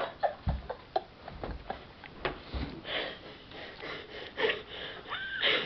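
A sleeping person snoring and snorting irregularly through the nose, with sniffs and clicks, and a short whistling tone near the end.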